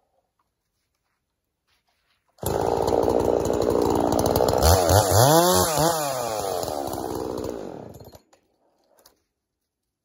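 Two-stroke gas chainsaw running and cutting into a firewood log, starting suddenly about two seconds in. Its engine note dips and rises several times as the chain bites into the wood, then fades out near eight seconds.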